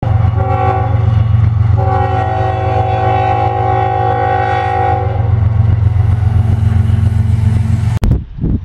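CSX freight locomotive's multi-chime air horn sounding a short blast and then a long one, over the steady low rumble of the diesel engine. The rumble runs on after the horn stops, then cuts off abruptly near the end.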